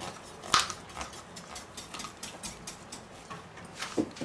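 Knife slicing down through a roasted goose breast on a wooden cutting board, the skin and meat giving a few sharp crackling clicks, the loudest about half a second in and another near the end.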